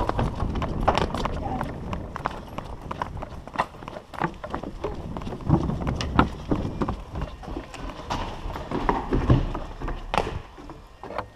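Running footsteps and landings slapping on paved paths, heard through a camera carried by a second runner, with a low rumble of wind and handling on the microphone.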